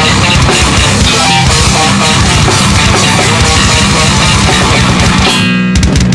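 Heavy metal band recording: distorted electric guitar, bass guitar and drum kit playing together, loud and dense. Near the end the cymbals drop out for a moment while a single note is held, then the drums hit back in.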